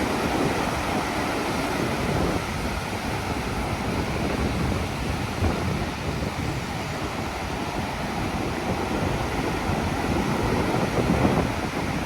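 Strong, gusty typhoon wind buffeting the microphone: a continuous rushing noise that swells and eases.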